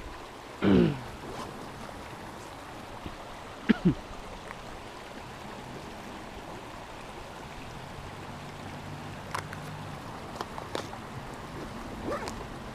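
Shallow stream rapids running steadily. A loud, short falling-pitched vocal sound comes about a second in and a shorter one near four seconds, with a few faint clicks.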